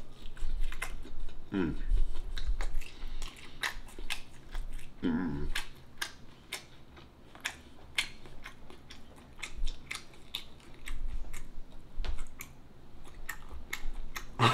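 Chewing and mouth sounds of someone eating, a string of wet clicks and smacks, twice broken by a short murmur that drops in pitch.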